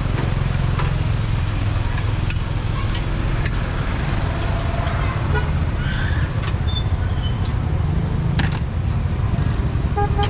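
Street traffic: vehicle engines running in a continuous low rumble, with scattered clicks and a brief horn toot near the end.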